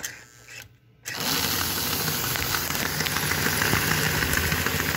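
American Flyer O gauge locomotive's electric motor and gearing starting up about a second in and running steadily on the powered rolling road, its driving wheels spinning on the rollers: an even whir with a low hum and fine crackle.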